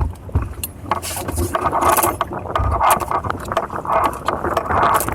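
Aboard a Hobie Cat 16 catamaran under sail: irregular clicks, knocks and rattles over a rushing noise of water and wind.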